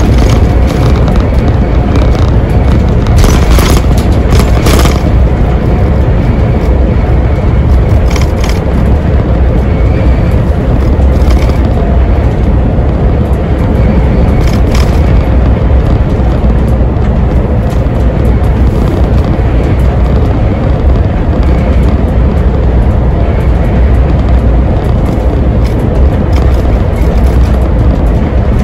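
Iveco Crossway Line bus with a Cursor diesel engine and ZF six-speed automatic, heard from inside at the driver's position while cruising: a loud, steady low engine and road rumble. A few short sharp knocks or rattles come about three to five seconds in.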